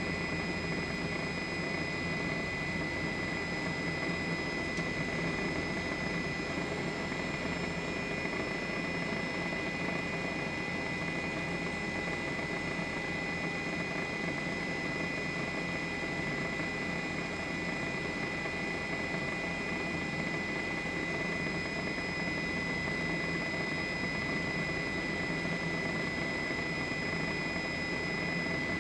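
Steady engine and rotor noise of a news helicopter heard from on board, with a constant high-pitched whine running over it.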